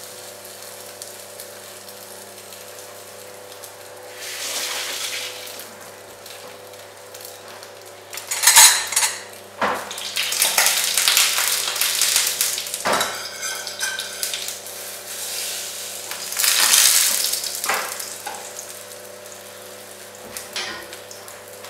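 Egg-soaked bread frying in oil in a frying pan, the sizzle swelling loud in several spells as it is turned and pressed, with tongs knocking against the pan a few times. A steady hum runs underneath.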